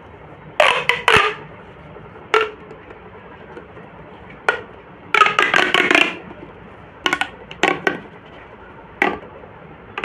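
Corrugated plastic pop tubes being stretched and bent by hand, their ridges snapping open and shut in short bursts of sharp clicking pops, with a longer run of rapid pops around the middle.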